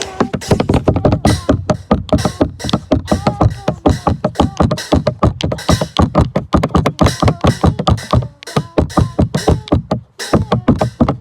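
Music: a song with a fast, steady beat.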